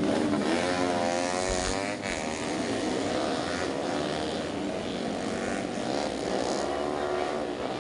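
Four-stroke underbone racing motorcycle engines running at high revs, their pitch wavering up and down, loudest in the first couple of seconds and then settling.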